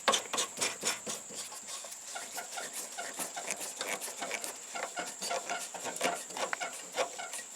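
Ball knob being screwed by hand back onto the threaded shaft of a riding mower's blade-engagement lever: irregular small clicks and scrapes, with a thin steady high whine behind them.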